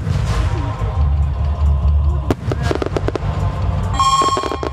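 Aerial fireworks shells bursting in a continuous low rumble of booms, with a quick cluster of sharp cracks a little past halfway. Music plays along with the display.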